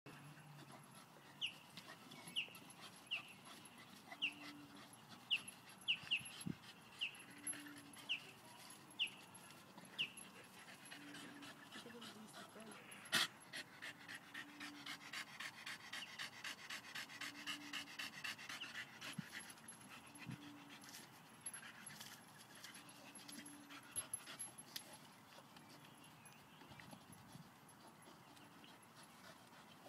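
Staffordshire bull terrier panting quickly and evenly while straining at a tree root, fastest for several seconds after a sharp click about a third of the way in. A run of short, high, falling chirps sounds over the first ten seconds.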